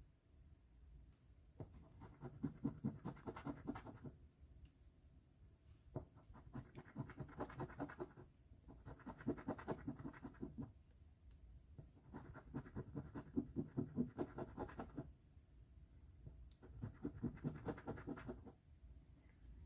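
Scratch-off lottery ticket being scratched in five bursts of quick rasping strokes, with short pauses between them.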